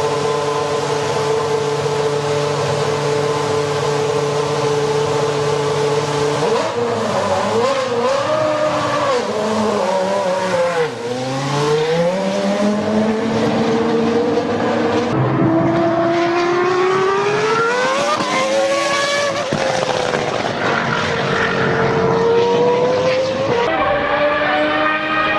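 Go-kart engine running at a steady high pitch, then repeatedly dropping and rising in pitch as the kart slows for corners and accelerates out of them.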